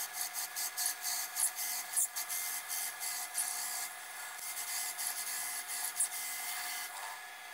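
Drill press driving a 2.5-inch hole saw down through a piece of scrap wood: a steady machine hum under a scraping cutting noise that swells unevenly several times a second as the teeth bite.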